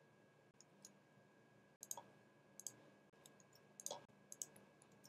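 Faint clicks of a computer mouse and keyboard, in about five small clusters roughly a second apart, over near silence.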